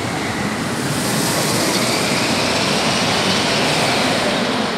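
Formula Rossa roller-coaster train launched at speed along its straight launch track, a loud rushing noise of the train and its wheels that swells and then eases off near the end as the train heads toward the tower.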